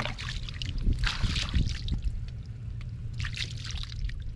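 Irregular splashing and sloshing of shallow water, as hands or feet work through wet ground, with a few sharp clicks and a steady low rumble underneath.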